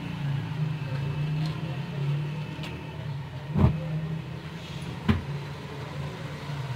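Ginger-garlic paste frying in oil in a steel pot over a steady low hum, with two sharp knocks of the wooden spatula against the pot, the first about halfway through and the second about a second and a half later.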